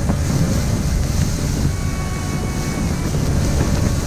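Strong wind making a steady low rumble on the microphone and against the ice-fishing tent.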